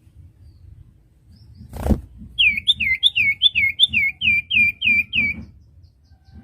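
Common iora (cipoh) singing a run of about eleven quick whistled notes, each sliding down in pitch, about three or four a second. A single sharp thump comes just before the song starts.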